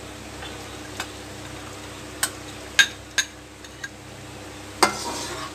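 A few sharp, separate clinks of a steel spoon against the yogurt bowl and the rim of an aluminium karahi as yogurt is scraped into the pan, over a low steady background hiss. The loudest clink comes near the end.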